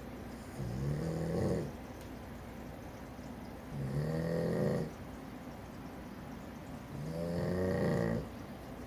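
Snoring: three long snores, each about a second long, coming roughly every three seconds.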